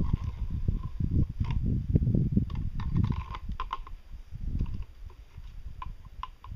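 Hard parts clicking and knocking lightly as a black pipe crank and a white cylindrical spacer piece are handled and fitted, a few short sharp clicks scattered through, over an uneven low rumble that is louder in the first few seconds.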